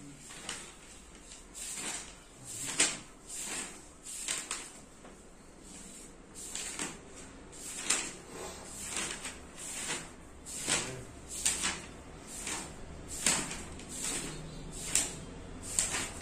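Marker pen writing: an irregular run of short scratchy strokes, roughly one or two a second.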